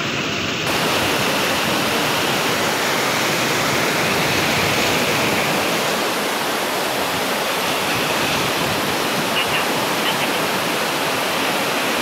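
Steady rush of fast-flowing river water over rapids, an even hiss without breaks. It turns brighter and slightly louder just under a second in.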